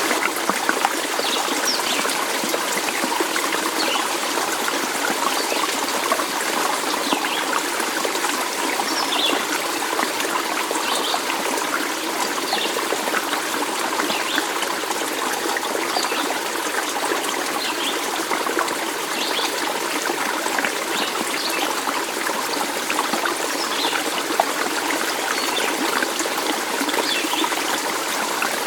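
Small stream of water trickling and babbling steadily, an even rushing hiss dotted with faint short high splashes.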